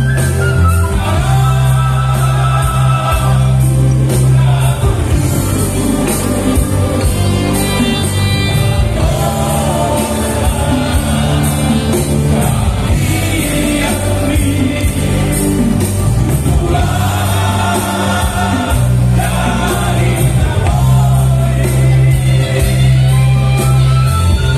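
A group of men singing a song together into microphones, in the manner of a vocal quartet, backed by a live band with guitar, saxophone and a steady bass line.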